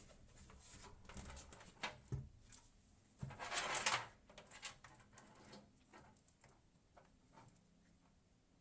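Small handling sounds: scattered clicks and light knocks, with a short rustling scrape about three and a half seconds in, then a few faint ticks.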